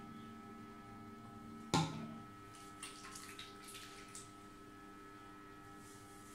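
A single sharp knock about two seconds in, ringing briefly in a small tiled room, followed by a string of soft clicks and rustles as wet hair is flipped and scrunched by hand, over a steady electrical hum.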